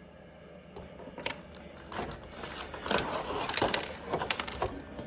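Small plastic toy accessories and their plastic packaging handled: irregular crinkling, rustling and light clicks, starting about a second in and busiest in the middle.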